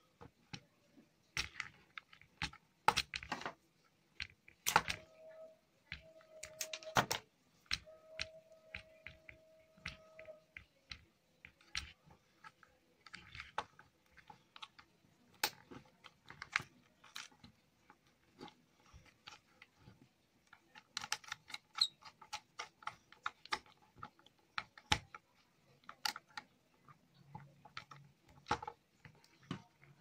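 Irregular clicks and taps of a screwdriver and fingers working the screw terminals and wires of a plastic switchboard plate.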